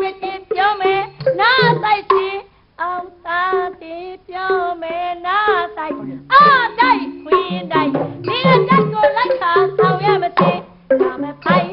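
Burmese stage duet song (hnit-pa-thwar): one voice sings a wavering, ornamented melody in short phrases over an instrumental accompaniment with low drum notes.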